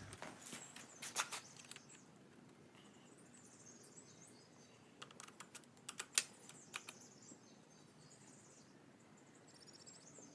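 Scattered sharp metallic clicks and clinks of a wrench working on a motorized bike's exhaust bolts: a few near the start and a quick cluster about five seconds in. Faint birdsong can be heard in the background.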